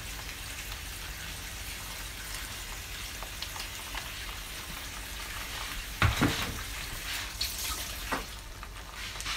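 Cream sauce sizzling steadily around pasta in a frying pan. About six seconds in there is one loud knock, followed by a few lighter clicks.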